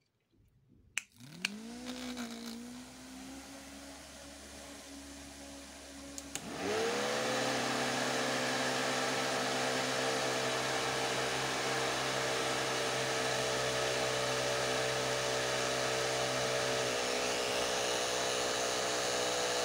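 Small DC hobby motor spinning a plastic propeller: a click about a second in, then a whine that rises in pitch as it spins up. At about six seconds it spins up again, louder, and runs with a steady whirring whine.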